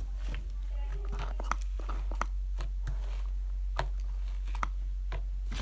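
Foaming hand soap pump being pressed to dispense foam into a bowl: a string of irregular short clicks and small squishy crackles, over a steady low hum.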